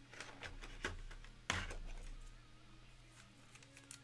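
Handling noise of trading cards in rigid plastic holders: a few sharp clicks and knocks as they are picked up and set down, the loudest about a second and a half in.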